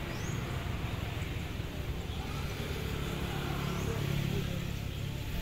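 Distant jet airliner engines at an airport, a steady low rumble that swells a little about four seconds in. A bird gives a short rising chirp twice.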